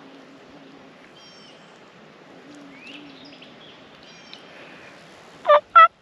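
Hen-turkey yelps on a hunter's turkey call, a loud evenly spaced run about four notes a second starting about five and a half seconds in, sent out to strike a gobbler into answering. Before it, a few faint songbird chirps.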